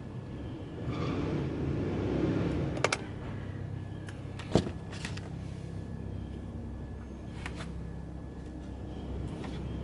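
A steady low mechanical hum, with a few sharp metallic clicks and one louder knock about four and a half seconds in.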